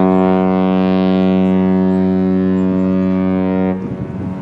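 A ship's horn sounding one long, deep blast at a steady pitch that cuts off just under four seconds in.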